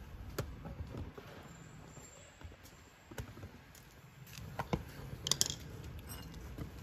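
Scattered small metallic clicks and clinks of hand tools against a scooter's rear brake caliper as its pistons are pressed back into their bores. The loudest cluster of clinks comes a little past halfway.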